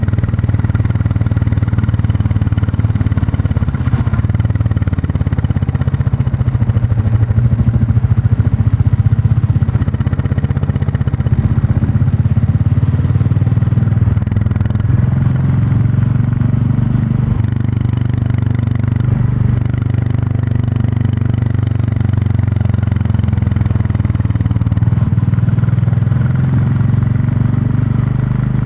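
Royal Enfield Classic 350 single-cylinder engine and exhaust running steadily on the move, its note dipping and rising a little as the throttle and speed change.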